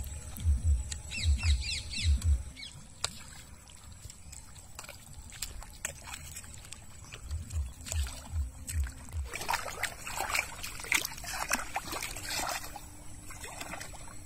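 Bare feet squelching through wet river mud, a steady rhythm of heavy steps, with a few bird chirps in the first couple of seconds. From about ten seconds in, feet splashing and sloshing as they wade into shallow water.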